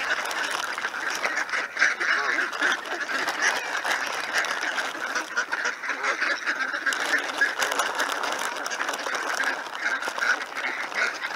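A flock of ducks quacking over one another without a break, many calls at once.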